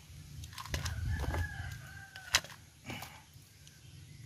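A rooster crowing in the background, one long held call, with a few sharp clicks as the crabs' shells knock against the metal wok, the loudest about two and a half seconds in.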